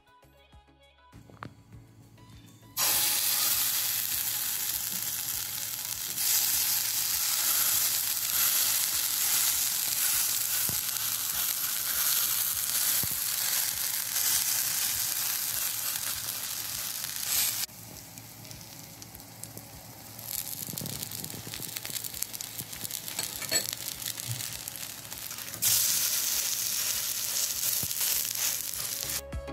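Thalipeeth dough of grated bottle gourd sizzling in oil on a hot iron tava. It starts about three seconds in, grows quieter past the middle and loud again near the end.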